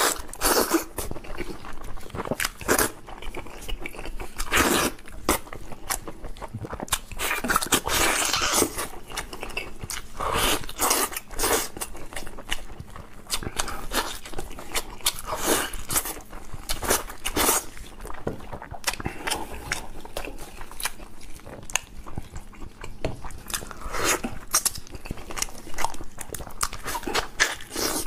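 A person biting and chewing chicken, with many short, irregular smacks and crunches.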